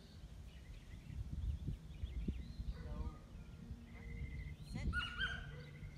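Birds calling: a few short, pitched calls with falling slides, about three seconds in and again near five seconds, over a low background rumble.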